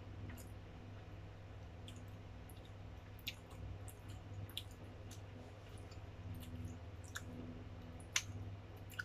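Quiet chewing and mouth clicks, with a few light clinks of a metal spoon against a porcelain bowl, the sharpest about eight seconds in as the spoon scoops from the bowl. A low steady hum lies underneath.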